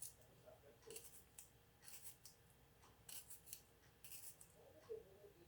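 Faint, short scraping strokes, roughly one a second and sometimes two or three close together: a fork pricking the skins of raw red potatoes.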